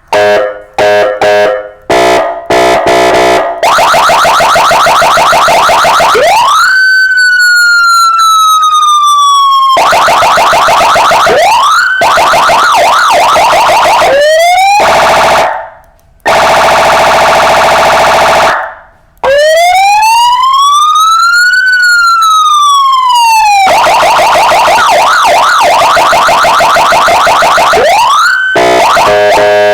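A car-mounted electronic siren and horn kit (còi hú, kèn hụ) is run through its tones. It starts with a few short horn blasts, then a steady buzzing horn tone, a wail that shoots up and slowly falls, quick rising yelps, and a tone that sweeps up and down, with the steady horn tone between them.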